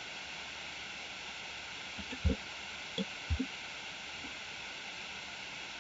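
Steady hiss of a desktop microphone's background noise, broken by a few short, low thumps: two about two seconds in and a pair about a second later.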